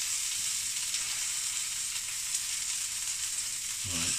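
Duck breast sizzling in a hot frying pan as its edges are seared: a steady frying hiss.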